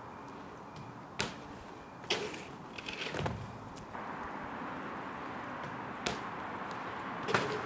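BMX bike being ridden on concrete: a few light knocks and clicks from the bike, a steady hiss that sets in about four seconds in, and a sharper knock near the end.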